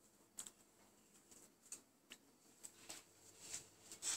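Faint, scattered clicks and ticks, about one a second: a beagle's claws on a tiled floor as it moves about and sniffs.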